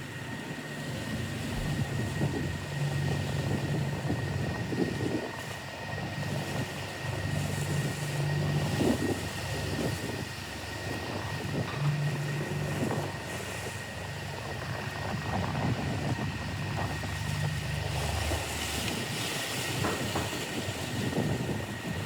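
Motorboat engine running steadily, its pitch rising and falling as the throttle changes, over rushing wind and water.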